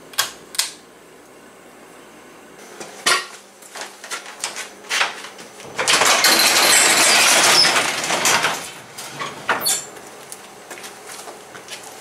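A pull-chain light switch clicks twice near the start, followed by a few knocks. A sectional garage door is then raised by hand, its panels and rollers rattling loudly in the metal tracks for about two and a half seconds before dying away into small clicks.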